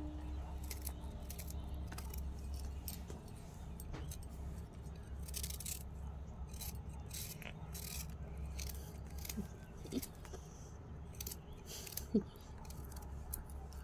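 Ivy gourds (kundru) being sliced by hand with a small knife, with irregular faint clicks and ticks as the pieces drop into a steel plate, over a low steady hum.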